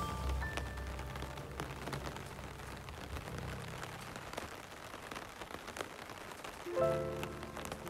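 Rain falling on wet pavement and puddles: a steady patter with many individual drops ticking. Soft pitched background music dies away in the first few seconds and comes back with a new chord near the end.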